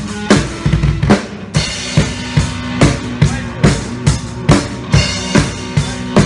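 Drum kit played close up: a steady beat of kick and snare hits about two to three a second, with cymbals, and an electric guitar playing along under it.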